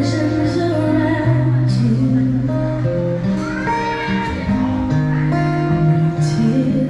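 Live band music: a singer with guitar accompaniment over a steady bass line.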